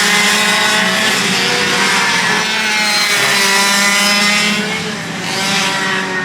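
Several racing kart engines running hard together, their overlapping pitches rising and falling as they pass. The sound dips a little about five seconds in.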